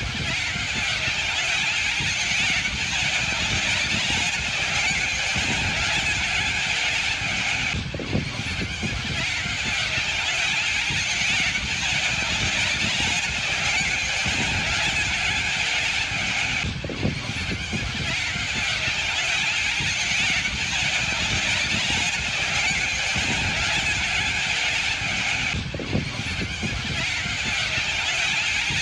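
A huge flock of cockatoos screeching all at once, a dense, continuous din of overlapping calls with no single bird standing out.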